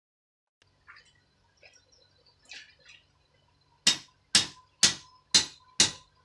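Blacksmith's hammer striking iron on an anvil: five sharp blows about two a second near the end, each with a short metallic ring, after some faint clinks of metal being handled.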